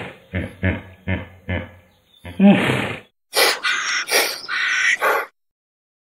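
Animal calls: a call that falls in pitch, followed by four short grunts in quick succession, then the same call again, and then a hoarse, noisy call in about three bursts. It goes silent about a second before the end.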